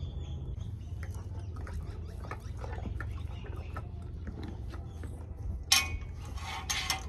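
A horse crunching and chewing a carrot, a run of small crisp crunches, with two louder hissing bursts near the end over a steady low hum.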